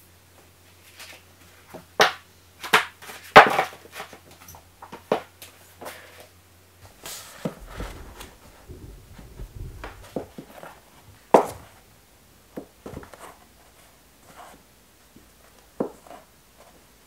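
Books being set down, tapped and pushed into line on a bookcase shelf: irregular knocks and taps with softer shuffling between, a few sharp ones in the first four seconds and another about eleven seconds in.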